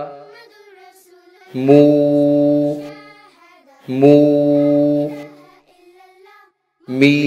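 A voice recites Arabic syllables with long vowels, mā and then mū. Each is drawn out evenly for about a second and steady in pitch, and there are three of them about 2.5 seconds apart. The vowels are lengthened as a madd letter requires, about one alif long.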